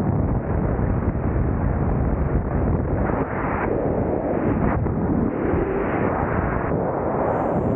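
Steady wind buffeting the microphone of a body-mounted camera, from the rush of air during a skydive.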